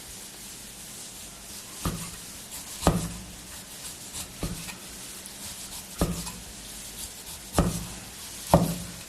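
Kitchen knife slicing cooled boiled pork belly into thin slices, the blade knocking on the chopping board at the end of each cut. There are about six separate knocks, roughly one a second, with quieter slicing between.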